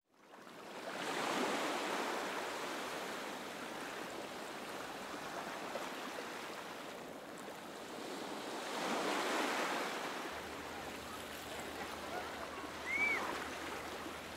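Ocean surf washing up a beach, swelling about a second in and again about nine seconds in. A brief high chirp sounds near the end.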